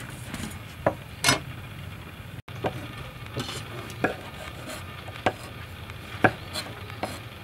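Kitchen knife cutting small limes on a wooden chopping board: a sharp knock each time the blade hits the board, about one a second. Before that, two clinks as the limes are handled in a metal tray, the second louder.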